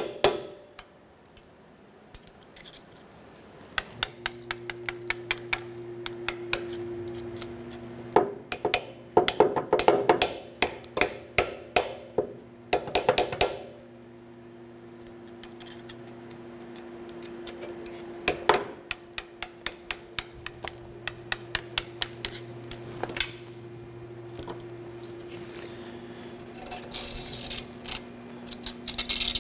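Steel pick clicking and scraping against a rusted exhaust flange, picking out the old O-ring gasket, in quick clusters of ticks with a longer gritty scrape near the end. A steady low hum runs underneath from about four seconds in.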